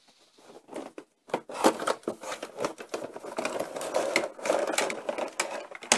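Cardboard box and plastic packaging rustling and scraping as the plastic pieces of a Play-Doh playset are lifted out, with many light knocks of plastic against cardboard.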